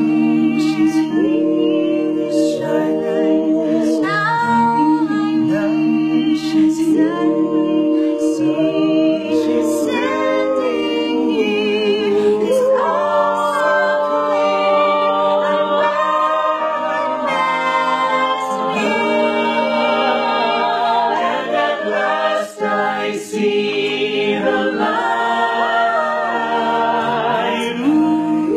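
A mixed group of voices singing a cappella in harmony, holding chords and moving between them, with no instruments.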